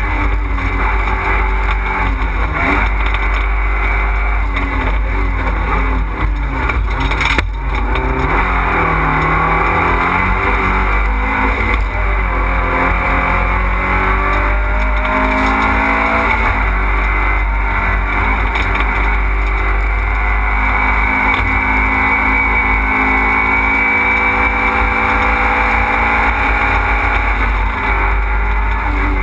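Fiat Panda rally car engine heard from inside the cabin, revving hard and dropping back again and again as the car is driven flat out through gear changes and corners. There is a single sharp knock about seven seconds in.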